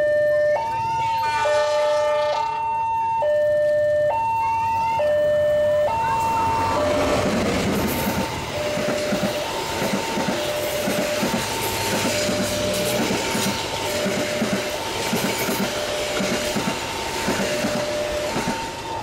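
A diesel-hauled passenger train sounds a short horn blast about a second in, then passes close by from about seven seconds in, with a rushing of the carriages and rhythmic clacking of the wheels over the rail joints. A two-tone electronic level-crossing alarm keeps alternating high and low, about a second per tone.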